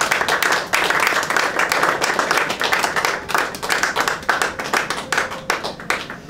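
A small group of people applauding with hand claps, dense at first, thinning to a few last claps near the end.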